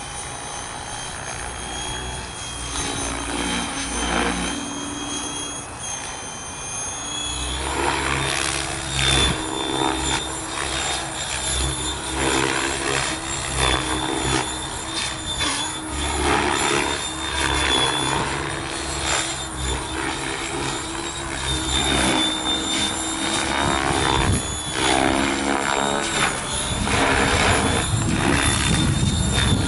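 Electric Mikado Logo 600 SE radio-controlled helicopter in aerobatic flight: a high steady whine from its motor and drive, with the rotor blades whooshing. It is quieter at first, then about seven seconds in grows louder and swells and fades with the manoeuvres.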